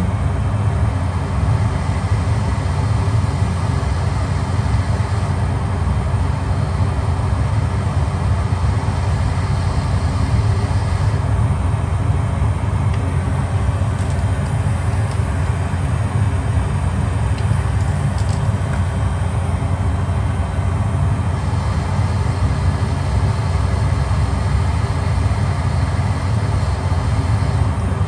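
Steady low machine hum from running bench equipment, even and unchanging throughout.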